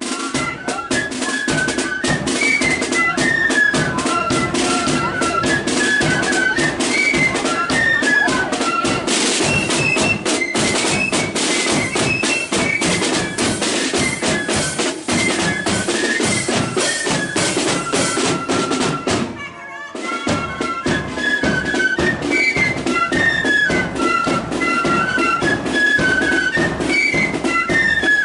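Marching flute band playing a tune, with high flutes carrying the melody over a steady beat of snare and bass drums. Near two-thirds of the way through the playing breaks off for a moment, then starts up again.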